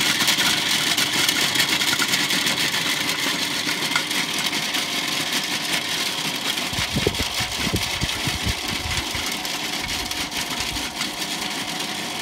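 Electric food processor running at speed, its blade chopping whole almonds: a steady motor whir with a dense patter of clicks from the nuts, easing slightly as they break down. A few low thumps come around the middle.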